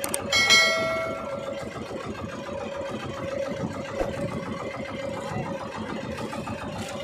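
Small boat engine running steadily. About half a second in, a short ringing tone sounds and fades within a second.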